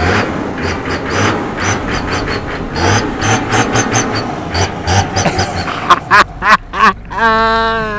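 Toyota Land Cruiser HZJ75's 4.2-litre 1HZ straight-six diesel being revved again and again, the throttle blipped in short rises heard from the exhaust pipe.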